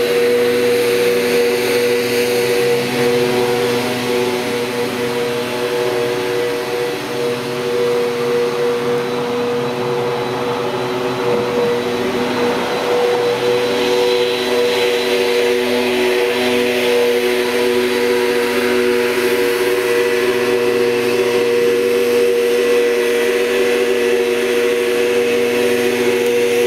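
Backpack leaf blower's engine running at a steady speed: a constant droning hum with the rush of air from the blower wand.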